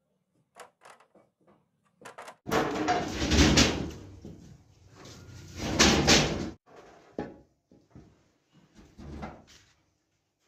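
Steel drying-cabinet doors and cast sewing-machine parts being handled, banging and scraping. Two loud, harsh clatters of about a second each come a few seconds apart, with scattered light knocks before and after.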